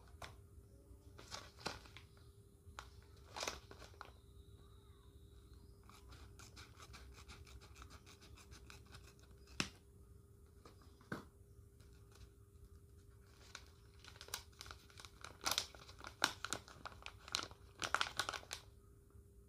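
A sealed tobacco pouch being torn and handled open: its packaging crinkles and rustles in short irregular bursts, busiest and loudest near the end.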